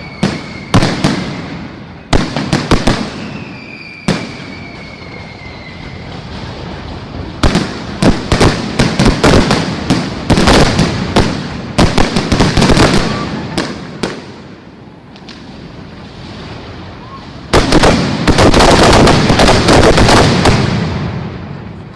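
Aerial fireworks going off: repeated sharp bangs, with two slightly falling whistles in the first few seconds. About three-quarters of the way through comes a dense salvo of rapid bangs and crackling, the loudest part, lasting about three seconds.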